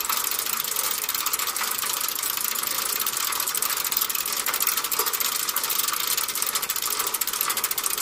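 Steady fast clicking and rattling inside a moving AmberSky Ferris wheel gondola as the wheel turns and carries it upward.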